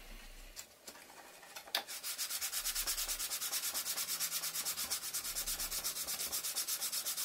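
Hand sanding of a small model part, fast even back-and-forth strokes about five a second, starting about two seconds in after a few light clicks.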